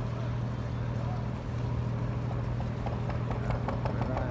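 A small motor boat's engine running with a steady low hum. About three seconds in, a rapid, regular knocking of roughly six beats a second comes in.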